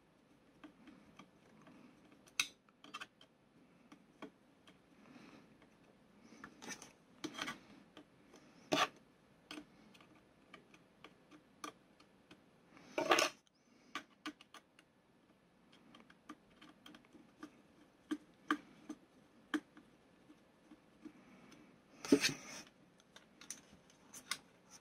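Small screwdriver clicking and scraping on a tiny screw in a plastic-and-metal model kit frame as a wrongly fitted screw is worked back out. A few louder knocks of the parts being handled come about nine and thirteen seconds in and again near the end.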